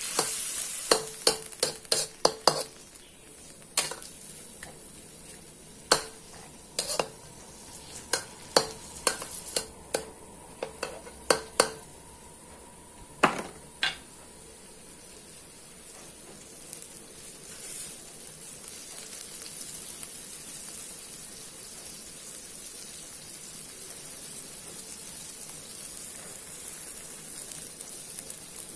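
A metal spatula scrapes and knocks against a wok while stirring pieces of roast duck and chicken, over a steady sizzle of the meat cooking in a little water. The clinking of the stirring stops about halfway through, and the simmering sizzle goes on alone.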